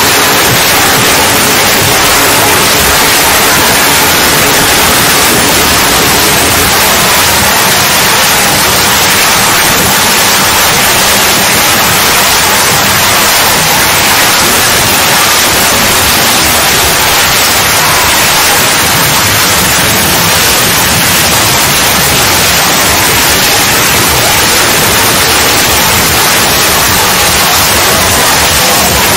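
Loud, steady hiss of static-like noise.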